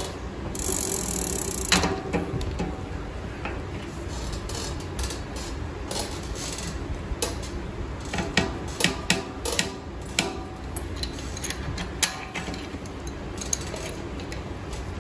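Bicycle cassette lockring being tightened with a lockring tool and wrench: sharp, irregular metal clicks of the serrated lockring over the cassette, coming in clusters mostly through the middle. The clicking is what he takes to mean the lockring is tight enough. A short rasping rustle comes about half a second in.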